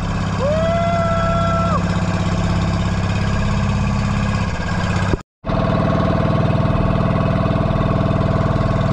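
Motorised outrigger boat (bangka) engine running steadily with a fast, even pulse. The sound cuts out completely for a moment about five seconds in.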